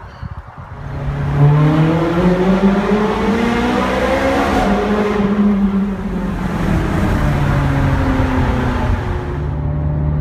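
Ferrari 430 Scuderia's naturally aspirated 4.3-litre V8 accelerating hard. Its note rises over the first few seconds, then runs on at high revs.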